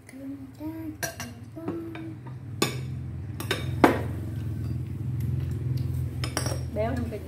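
Chopsticks and a spoon clinking against ceramic bowls, several sharp separate clinks, over a low steady hum that sets in a few seconds in.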